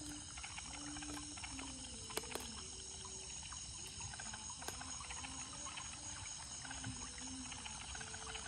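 Night chorus of insects with a steady high buzz, with frogs calling in short, low, repeated notes. A few soft clicks from the nylon gill net being handled.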